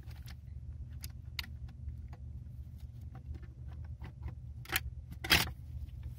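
Metal parts inside a GM 6T45 automatic transmission case clicking and clinking as they are worked loose by hand, with a louder clatter about five seconds in.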